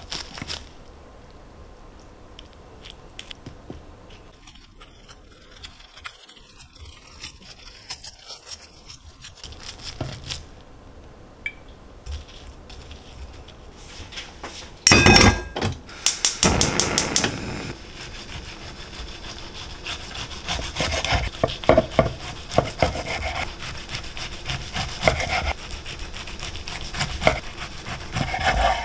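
Knife sawing back and forth through food on a wooden cutting board. A single loud knock about halfway through, then the strokes come thick and fast.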